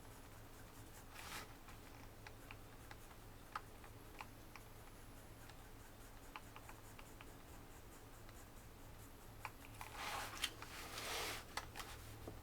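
Pencil working on paper, faint: scattered light taps and short strokes, one brief stroke about a second in, and a longer run of quick scratchy shading strokes near the end.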